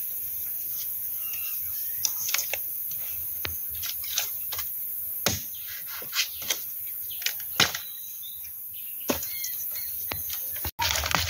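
Irregular sharp snaps and cracks from cutting a bamboo shoot at the base of a bamboo clump, among dry bamboo leaves and sheaths, over a steady high-pitched hiss. The sound drops out briefly near the end.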